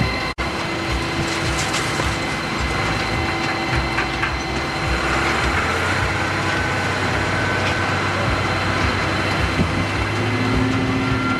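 Tractor-driven silage machinery running steadily, with a faint whine on top and a brief cut in the sound just after the start.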